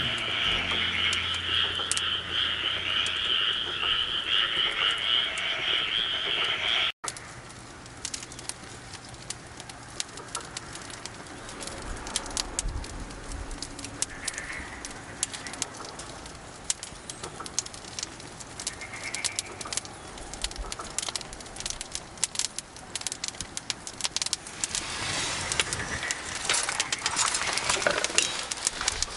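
A steady chorus of frogs calling, cut off suddenly about seven seconds in. It is followed by a quieter stretch of scattered sharp clicks and crackles with a few short bird calls, and the clicks grow denser near the end.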